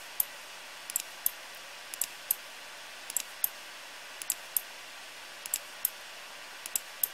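Computer mouse buttons clicking in small clusters of sharp clicks, roughly one cluster every second or so, as the mouse drags a 3D view round. A steady faint hiss lies under the clicks.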